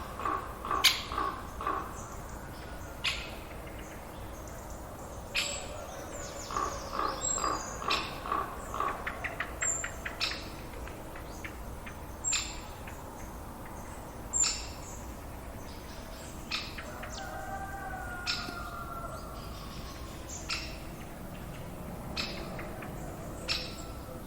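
Countryside forest ambience of birds chirping: short, sharp chirps every second or two over a steady low background. A rapid pulsing call repeats about four times a second near the start and again around a third of the way in, and a fainter drawn-out call wavers in the middle.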